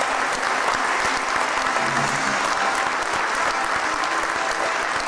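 Wedding guests applauding, a dense steady clapping that holds at an even level.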